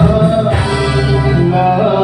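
A man singing a Bengali Baul folk song live with a band, keyboard among the accompaniment, holding long steady notes that shift pitch about half a second in.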